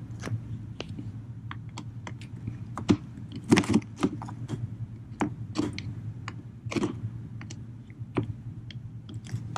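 Irregular sharp clicks and taps of a ratchet and extension with a T25 Torx bit loosening the MAF sensor's mounting bolts, a few clicks a second, over a low steady hum.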